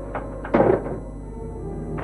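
Dramatic background music with one heavy, drum-like hit about half a second in.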